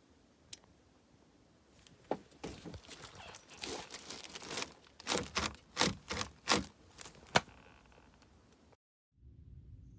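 Metal hardware being handled: an irregular run of sharp clicks and rattles, the loudest a single click about seven seconds in. It cuts off abruptly near the end and gives way to a low steady hum.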